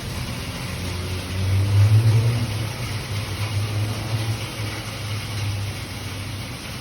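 Steady heavy rain with a low rumble of thunder that swells about a second in, is loudest soon after and fades out over the next few seconds.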